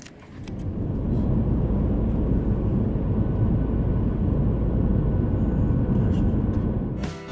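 Car driving on a road: a steady low rumble of road and engine noise that swells within the first second and eases off near the end.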